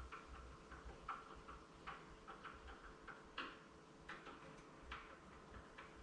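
Faint, irregular small clicks and ticks, a few a second with a few sharper ones, from hand work on a deadbolt latch at the edge of a door as its parts and screws are fitted.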